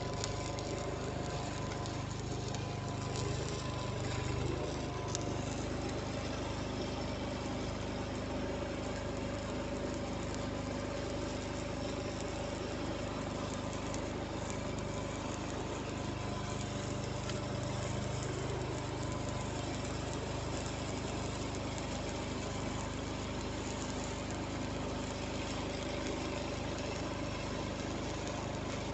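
An engine running steadily at a constant speed, with a low hum and a couple of steady whining tones over it.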